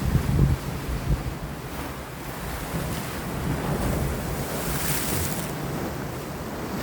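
Sea waves washing against rocks, with wind gusting on the microphone. The hiss of a wave swells about four seconds in and fades about a second later.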